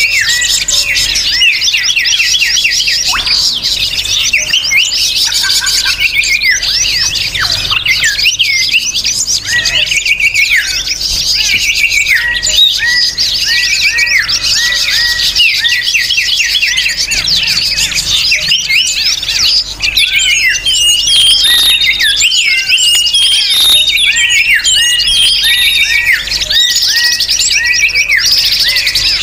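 A dense, unbroken chorus of many small birds chirping and twittering at once, their short calls overlapping: a noisy lure recording (suara pikat) for drawing wild birds in.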